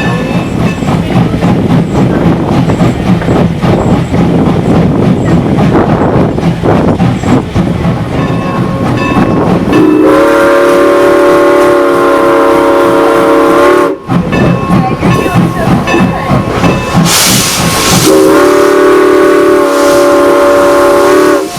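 Steam locomotive running with a rumbling, knocking train sound. About ten seconds in, its whistle blows a steady chord-like blast of about four seconds, and it blows a second one near the end. A loud hiss of steam starts shortly before the second blast.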